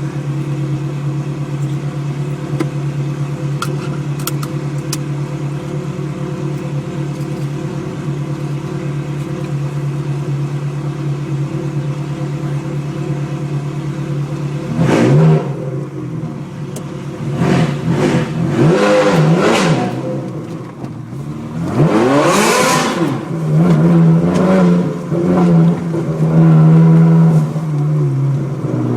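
A car engine idling steadily, then revved several times from about halfway, its pitch sweeping up and falling back. Near the end it is held at a steady raised speed.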